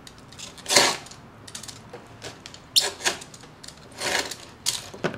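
Utility knife cutting through leather, trimming off the excess edge in about half a dozen short, separate strokes.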